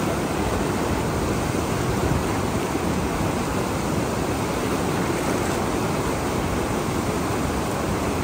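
Fast river rushing over rocks: a steady, unbroken sound of white water.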